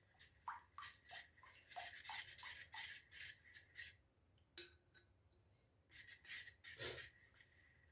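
A spoon stirring a honey mixture in a bowl, scraping and clinking against the sides in quick repeated strokes. The stirring pauses midway, with a single clink, then resumes briefly near the end.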